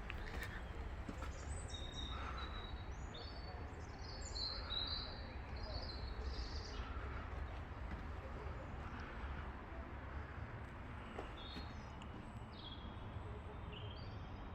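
Small birds chirping in short high calls, busiest in the first half and again near the end, over a steady low background rumble.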